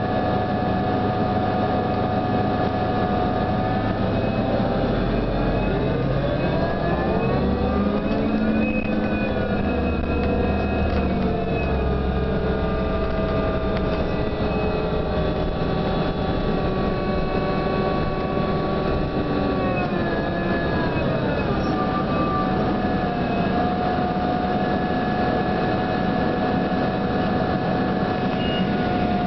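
New Flyer DE42LFA diesel-electric hybrid bus heard from inside the cabin: a low engine rumble with several whining tones from the drive that glide up about five seconds in, ease back down, drop again around twenty seconds in, and then hold steady as the bus speeds up and slows.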